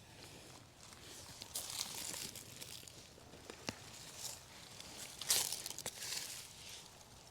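Digging in garden soil for sweet potatoes: irregular scraping and crumbling of earth, loudest about five seconds in, with a few sharp clicks.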